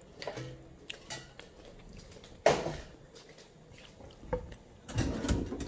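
Kitchen clatter: scattered short knocks and clinks of cookware and utensils being handled, loudest about two and a half seconds in, with a cluster of knocks near the end.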